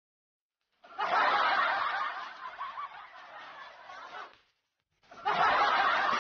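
A person snickering and laughing in two stretches: one starting about a second in and fading after about three seconds, and another starting about five seconds in.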